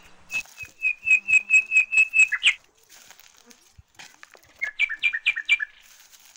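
A songbird singing two phrases. First comes a run of about ten quick, evenly repeated clear notes ending in a short flourish. After a pause of about two seconds comes a shorter phrase of four or five notes.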